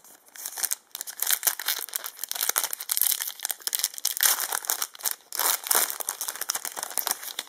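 Foil booster pack wrapper being crinkled and torn open by hand: a dense, irregular crackling that runs for several seconds.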